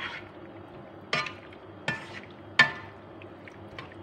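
Spatula knocking against a non-stick frying pan while stir-frying macaroni: three sharp knocks about 0.7 s apart, each with a short ring, the last the loudest.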